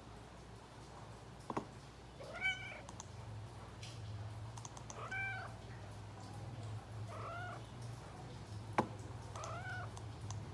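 Calico cat meowing four times, about two and a half seconds apart, each call rising and falling in pitch: demanding attention and wanting to play. Two sharp clicks, one about a second and a half in and one near the end, over a steady low hum.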